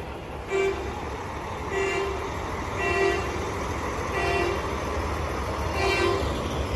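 Semi-truck air horn sounding a string of short toots, about one a second, over the low rumble of a diesel tractor rolling slowly past.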